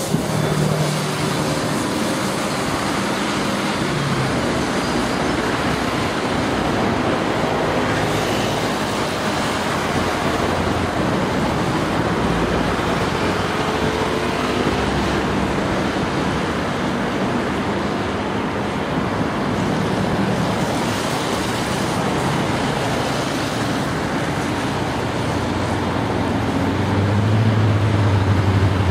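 Steady urban road traffic noise, with the low hum of a heavy vehicle's engine growing louder near the end.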